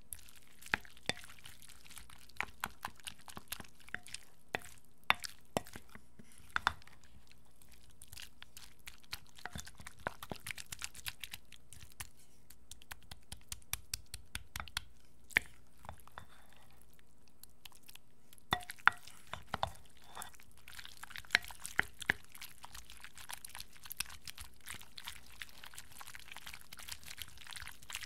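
Wooden spoon stirring cooked macaroni and cheese in a glass bowl, close to the microphone: a run of irregular sticky clicks and squishes, with a brief lull about two-thirds of the way through.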